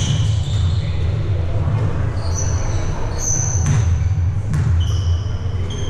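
Sneakers squeaking on an indoor court in short high chirps, with a few sharp impacts of a ball or feet, over a steady low rumble of the hall.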